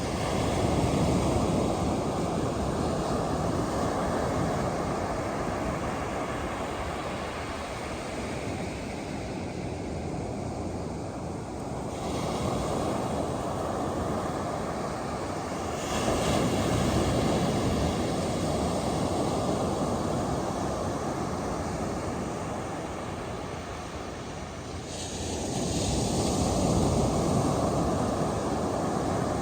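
Ocean surf breaking on a beach: a steady wash of waves that swells louder three times, just after the start, about halfway through and near the end.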